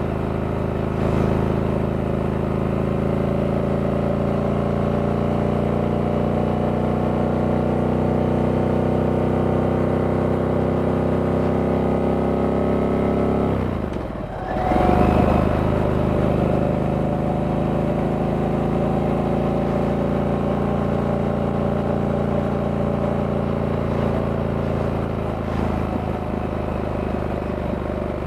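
Harley-Davidson Sportster S's 1250 cc V-twin running under load on the road, its pitch climbing slowly as speed builds. About halfway through the revs drop sharply and pick up again at a gear change, then it runs steady.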